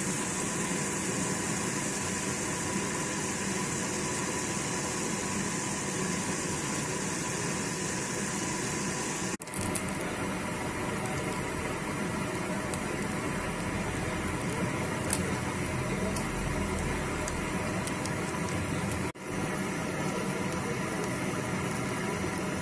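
Ground pork sizzling as it is stir-fried in a metal pan, with a steady hum underneath and a few light clicks of a metal spatula against the pan. The sound drops out briefly twice, about 9 and 19 seconds in.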